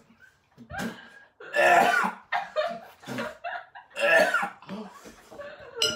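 A person coughing and laughing in several loud bursts, reacting to a foul-tasting smoothie.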